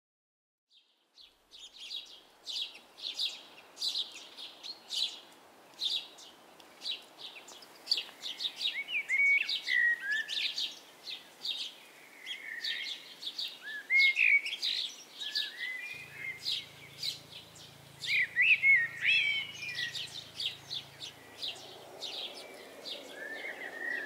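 Small songbirds calling and singing, starting about a second in: many short, high chirps throughout, with warbling, gliding song phrases woven between them.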